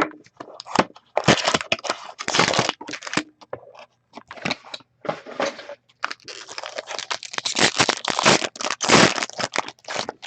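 Plastic shrink wrap and cardboard packaging of a sealed trading-card box being torn open and crinkled, in short irregular rips and crinkles.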